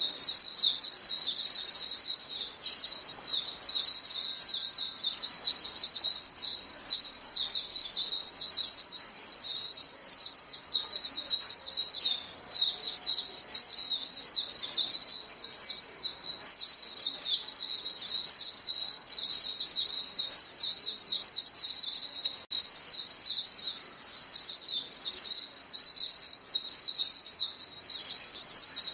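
A flock of female white-eyes calling to each other: a dense, nonstop stream of quick high-pitched chirps and twitters, many birds overlapping, with a brief dip a little over halfway through.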